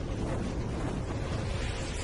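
Synthetic whoosh sound effect of a logo intro, a steady rushing noise like wind.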